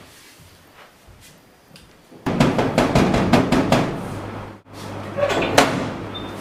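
Rapid, loud banging on a metal door, starting about two seconds in, breaking off briefly and then going on.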